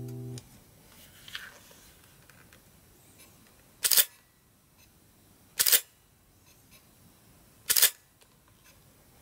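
Pentax reflex camera's shutter and mirror firing three single shots, each a short, sharp clack, about two seconds apart.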